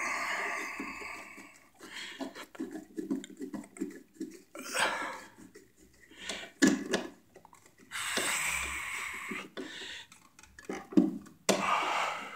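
A flathead screwdriver driving a duplex receptacle's mounting screw into its box, turning in short strokes with small clicks and scrapes until the screw is tight. Four rushes of noise come a few seconds apart.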